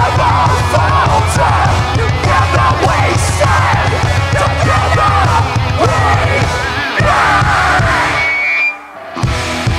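Heavy metal band playing live: distorted electric guitars over fast, dense drumming. The band cuts out briefly about eight and a half seconds in, then comes back with sharp accented hits.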